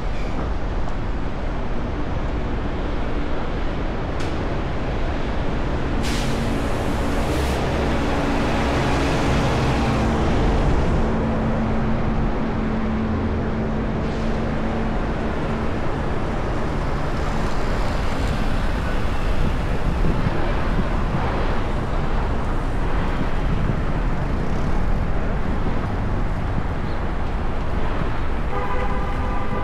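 Street traffic heard from a bicycle riding among it, with a steady rush of passing vehicles and wind on the microphone. There is a brief hiss about six seconds in, a vehicle's engine hum through the middle, and a short pitched horn-like tone near the end.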